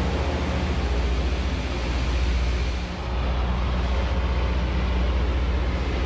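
Loram rail grinder running along the track: a steady, deep engine drone under a broad grinding hiss from the stones on the rail, with a brief dip in level about three seconds in.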